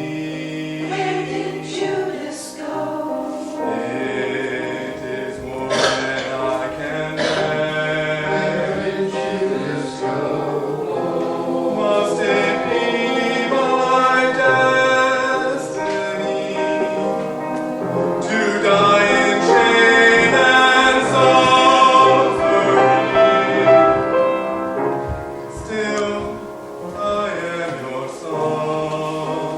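Choir singing a sacred cantata, swelling louder past the middle and easing off near the end.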